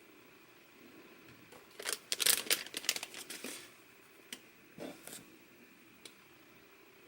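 Packaging crinkling and rustling as it is handled: a dense cluster of crinkles about two seconds in lasting a second and a half, then a few short single rustles.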